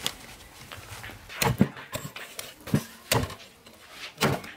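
About five sharp, irregularly spaced wooden knocks and thuds as pieces of roast pork are set down and handled on a thick round wooden chopping block.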